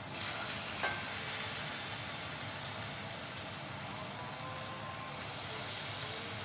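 Spicy Italian sausage sizzling steadily in hot oil in a pan, with a short tap about a second in.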